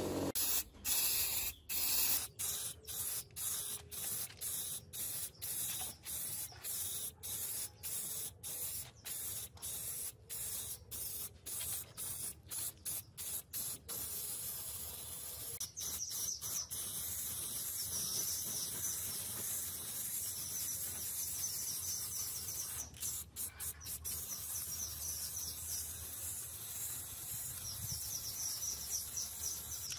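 Aerosol spray-paint can hissing, first in quick short bursts, about two a second, then in long, nearly unbroken passes from about halfway through.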